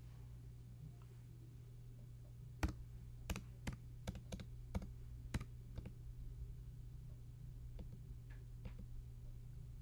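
Typing on a computer keyboard: a run of about eight sharp key clicks over some three seconds, then a few fainter taps, over a steady low hum.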